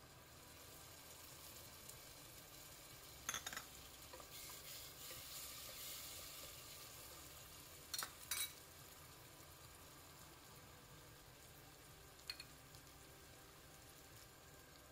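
Onions, chillies and freshly added chopped tomato frying in oil in a pot, sizzling faintly while a wooden spatula stirs them. The sizzle swells in the first half, and a few sharp knocks of the spatula on the pot come about three seconds in, twice around eight seconds, and once near twelve seconds.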